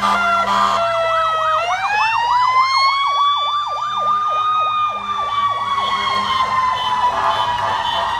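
Fire engine sirens: a fast up-and-down yelp throughout, with a second siren winding up about a second and a half in, holding, then slowly winding down near the end.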